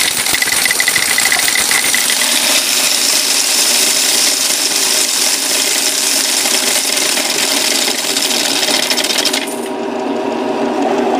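Electric coin counter running through a batch of quarters: a dense, steady clattering rattle that cuts off suddenly about nine and a half seconds in, leaving a lower hum.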